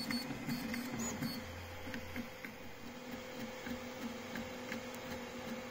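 FDM 3D printer at work: its stepper motors whir in short moves whose pitch changes every fraction of a second, over a steady hum, with a few faint ticks.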